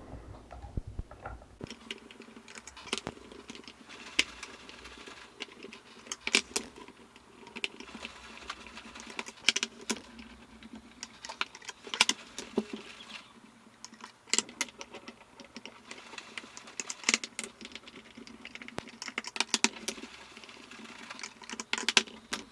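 A small Phillips screwdriver backing screws out of the back panel of a House of Marley Get Together speaker, heard as irregular light clicks, ticks and small rattles that come in clusters.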